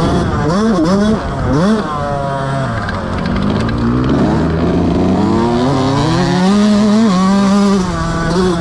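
Motocross bike engine, heard from the bike: quick throttle blips up and down in the first couple of seconds, revs dropping low for a few seconds, then climbing and held high near the end.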